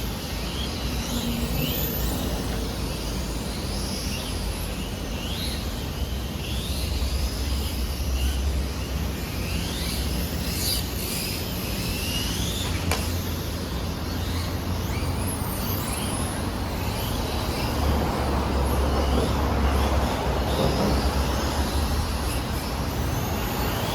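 Radio-controlled touring cars' motors whining, rising and falling in pitch over and over as the cars speed up and slow down around the track. Underneath is a steady low rumble of road traffic.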